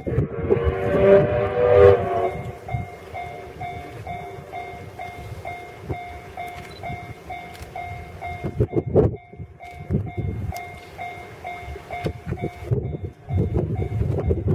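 Steam whistle of the C61 20 steam locomotive, one blast of several pitches sounding together, starting about half a second in and lasting about a second and a half. After it a bell-like tone pulses about twice a second, over wind rumbling on the microphone.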